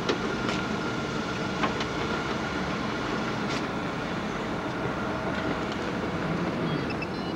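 A car driving, with a steady engine and road noise.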